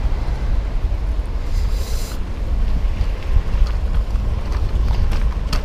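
Low, steady rumble of wind on the microphone while riding a bicycle on a wet road, with a brief hiss about a second and a half in.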